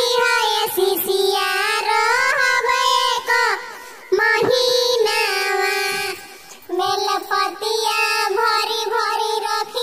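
A high-pitched, altered voice singing a Shiv charcha devotional song (Shiv guru bhajan) in a sing-song melody, with short breaks between phrases about four and six seconds in.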